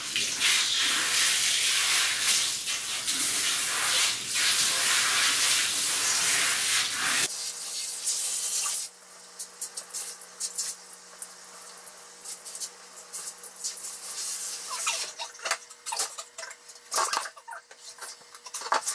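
Handheld shower head spraying water onto a dog's wet coat, a steady hiss that drops away about seven seconds in. After that come quieter dripping and handling noises, with a few sharp clicks near the end.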